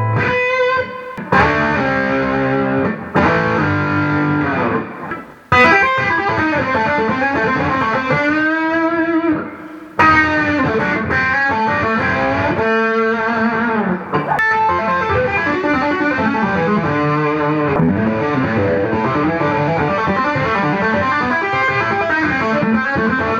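Electric guitar fitted with Fender Hot Noiseless pickups, played through a tube amp: lead lines of sustained notes with string bends and vibrato, briefly stopping twice.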